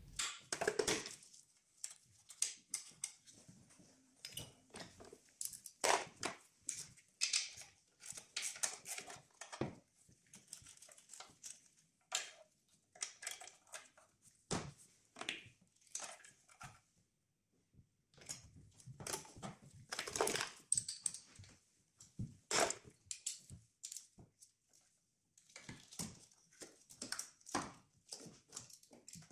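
Irregular clicks, taps and rattles of hand tools and plastic engine parts being handled in a car engine bay, in short clusters with pauses, as screws are undone and a plastic intake-side part is worked loose.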